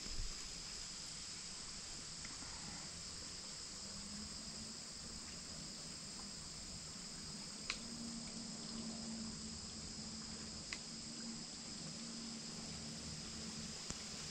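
Faint, steady high-pitched chorus of crickets. A few short sharp clicks sound about halfway through and near the end, and a faint low hum comes in partway through.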